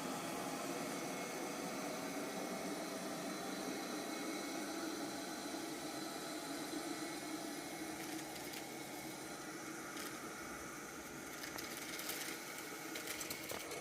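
Light 'N' Easy robot vacuum running as it cleans, a steady motor and suction hum, with a few sharp clicks in the second half.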